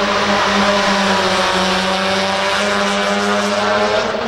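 A motor running steadily at one unchanging pitch, loud.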